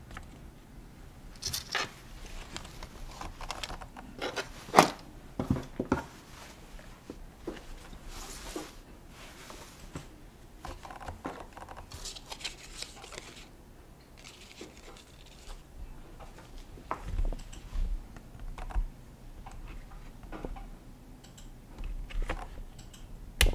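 Handling noises as a cotton baby sleeper is moved about and rearranged on a tabletop: soft rustling and scratching with scattered clicks and knocks, the sharpest knock about five seconds in, and a few dull thumps later on.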